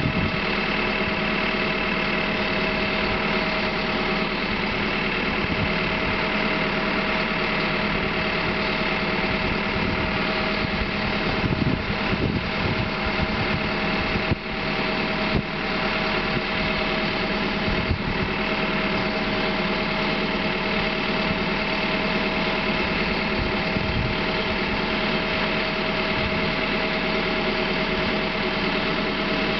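Backhoe's diesel engine running steadily while its back bucket is worked, with a brief dip in loudness about halfway through.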